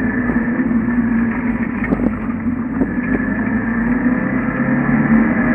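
1974 Ford Pinto's four-cylinder engine running as the car drives, heard from inside the cabin, with a steady low engine note that climbs slightly and grows a little louder near the end. A couple of light knocks come around the middle.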